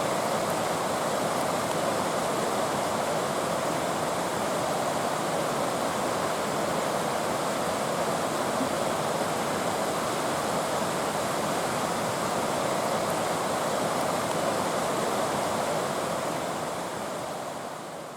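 Waterfall rushing steadily, fading out near the end.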